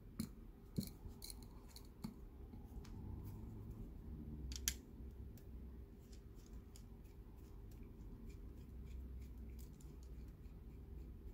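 Screwdriver working at the back of a brass Mul-T-Lock Junior lock cylinder to take the back off: small metal clicks and light scraping. There are a few sharper clicks in the first second and the loudest one a little under five seconds in.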